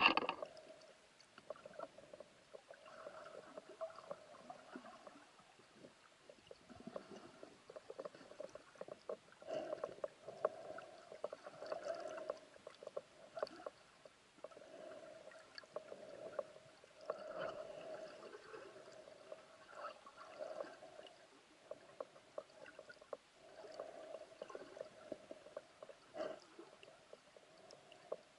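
Muffled underwater water movement and gurgling around a diver's camera, in on-and-off surges with scattered small clicks, after a brief loud noise at the very start.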